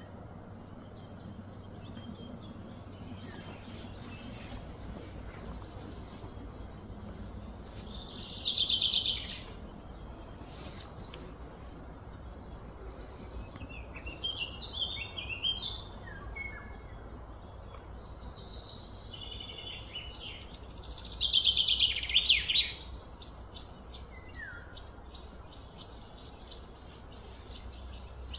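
Birds calling over a steady outdoor background hiss: scattered short chirps, and two louder, high, descending trills about a second and a half long, one about a third of the way in and one about three quarters of the way in.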